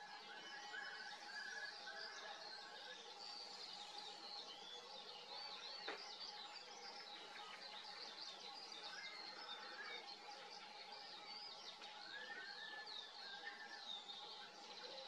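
Faint background of many small birds chirping and twittering throughout, over a steady faint hum, with a single brief click about six seconds in.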